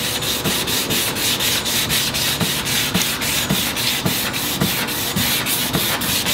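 Hand wet-sanding of a 2K-primed motorcycle body part with a sanding block and wet sandpaper: quick, even back-and-forth strokes, about five a second, flattening the primer before paint.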